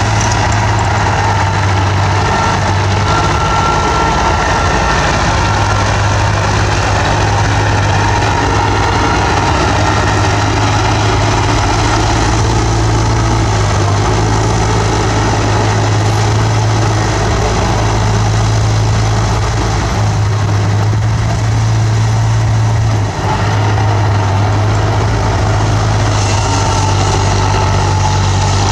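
Bulldozer's diesel engine running steadily with a deep, constant hum, briefly dipping about 23 seconds in.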